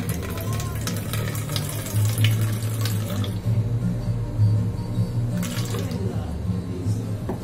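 Water pouring into a plastic container as it is weighed out for pizza dough: splashing through the first three seconds or so, then a short second pour about five and a half seconds in, over background music.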